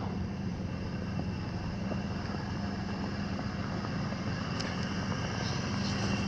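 Pickup truck engine idling steadily with a constant low hum.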